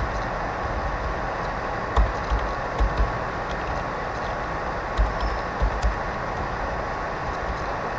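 Steady recording hiss with a faint steady tone, broken by a handful of short dull knocks in two clusters, about two and five seconds in. The knocks are keys being typed on a computer keyboard.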